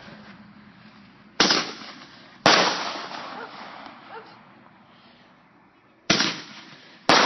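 Consumer fireworks going off: four sharp bangs, two about a second apart, then a pause of several seconds and two more, each trailing off in a fading echo.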